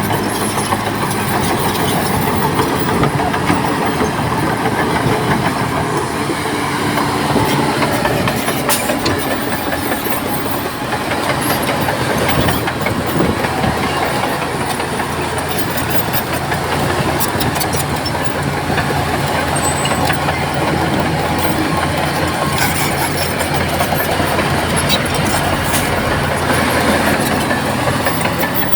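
Bulldozer's diesel engine running steadily, with the clank and rattle of its steel crawler tracks.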